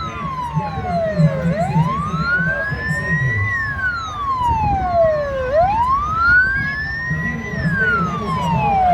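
Police siren wailing: the pitch climbs for about two seconds, then slides down for about two seconds, over and over, with a fainter steady tone alongside.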